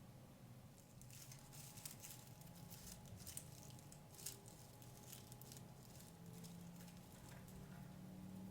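Dried flowers and stems being handled and pushed into a wreath, giving faint, irregular crackling and rustling that starts about a second in.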